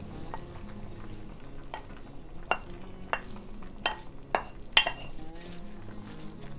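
A wooden spoon knocking and scraping against a bowl and the rim of a heavy soup pot as chopped escarole is pushed off the bowl into the soup and stirred, giving about half a dozen sharp clacks, the loudest about five seconds in.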